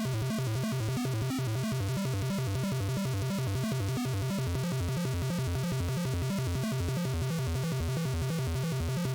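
Background music: a quieter passage with a steady, evenly repeating pulse, cutting off suddenly at the end.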